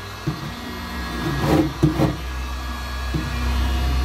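Heated chisel's heater running with a steady blowing hum as it heats up. A few sharp knocks come about half a second in and near the middle.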